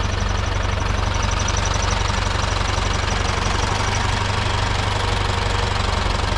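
Farm diesel engine idling steadily with an even, fast low beat. A faint high pulsing whine fades out about two thirds of the way in.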